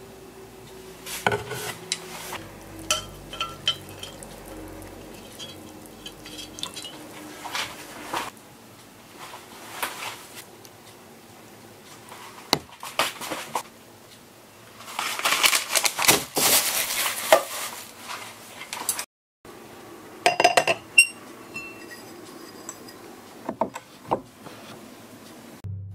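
Metal chopsticks clinking and scraping against a porcelain bowl as pieces of fried fish are moved and arranged: scattered light taps, with a denser, louder stretch of clatter in the middle.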